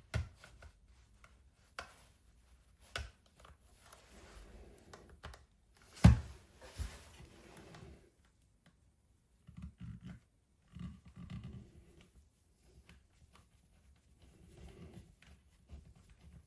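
Plastic parts of a Meta Quest 3 VR headset being handled and pressed together during reassembly: a few sharp clicks and knocks, the loudest about six seconds in, with scraping and rustling between them.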